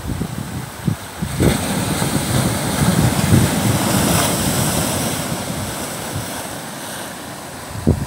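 Ocean surf: a wave breaks and washes up over sand and rocks, swelling about a second and a half in, loudest midway, then slowly fading. Wind buffets the microphone in low rumbles near the start.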